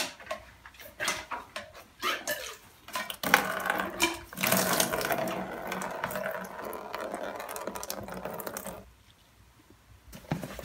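Wort pouring from a siphon tube into a plastic fermenter bucket: a steady splashing rush that starts about three seconds in and stops suddenly near nine seconds. A few knocks come before it.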